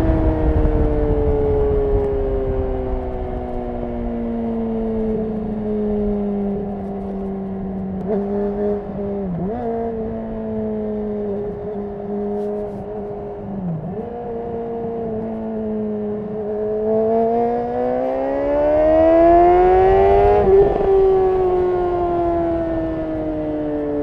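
Honda CBR600RR's 599 cc inline-four through a Yoshimura RS5 exhaust, heard from the rider's seat over wind rush. The revs ease down slowly, then hold steady at cruise with two brief dips in pitch. They climb for about four seconds under acceleration, drop back sharply near the end, and then ease down.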